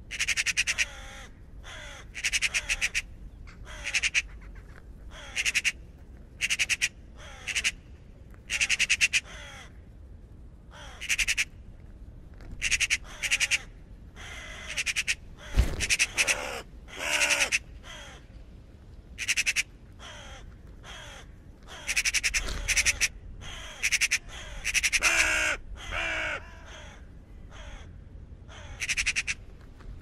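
Raven calling over and over: about two dozen harsh, rasping croaks, some in quick clusters and many sliding down in pitch, with a brief low thump about halfway through.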